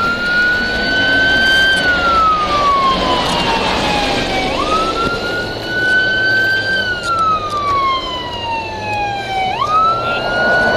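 Emergency vehicle siren on a slow wail: the pitch jumps up, holds high, then glides slowly down over about five seconds, starting over twice.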